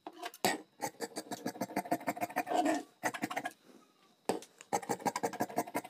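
Scissors cutting through cloth: a rapid run of short crunching snips, with a brief pause about three and a half seconds in before the cutting resumes.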